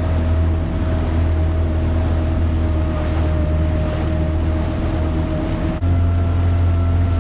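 Kawasaki Ultra 310 LX-S jet ski's supercharged four-cylinder engine running at a steady speed under way, with water and wind rushing past. About two-thirds through there is a momentary break, after which the engine note sits at a slightly different pitch.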